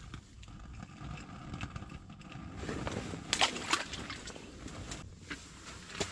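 Water sloshing and splashing in an ice-fishing hole, loudest about three to four seconds in, mixed with a few sharp clicks of handling.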